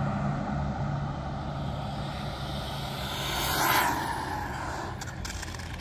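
Road traffic: a vehicle passes by, its noise swelling to a peak a little under four seconds in and then fading, over a low engine hum that fades out early on.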